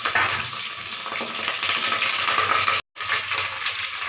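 Onion, garlic, dried red chillies and fresh curry leaves sizzling and crackling in hot oil in a pan while they are stirred. The sound drops out for an instant about three seconds in.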